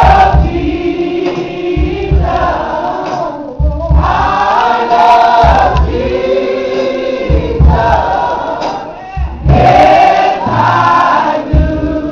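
Group of voices singing a gospel song in phrases, with deep bass notes repeating at a steady pace underneath.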